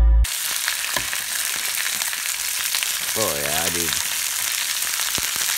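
Salmon pieces sizzling steadily as they fry in oil in a nonstick frying pan, stirred with a spoon now and then. Electronic music cuts off just after the start.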